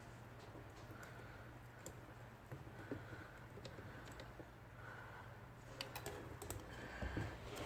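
Faint small clicks and taps of metal parts being handled inside an IBM Selectric II typewriter mechanism while a new cable is fitted, over a steady low hum.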